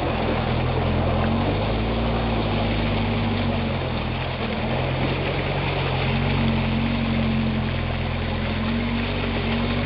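Jeep Wrangler's engine running at low, fairly steady revs as it crawls through mud, with a dense rushing noise over it from the front tyre churning mud and wet leaves.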